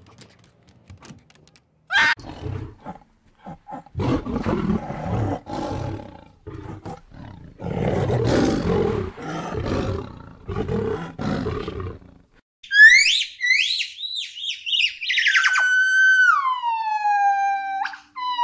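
A brief high whine, then for about eight seconds a young tiger growling and snarling in rough, rasping bursts. After that, gibbons call: a run of quick rising whoops, then a long clear note that slides down in pitch.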